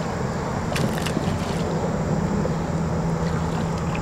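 A hooked largemouth bass thrashing and splashing at the water surface, with two sharp splashes about a second in, over a steady rushing noise and a low hum.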